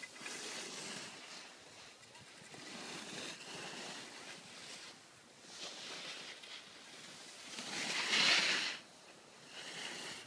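Skis hissing and scraping over packed snow as skiers pass close by, in several swells that rise and fade, the loudest just after eight seconds in.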